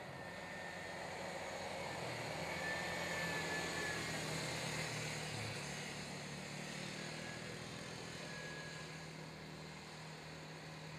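Small engines of two youth ATVs running on a dirt track, a steady buzzing drone that grows louder a couple of seconds in and eases off toward the end.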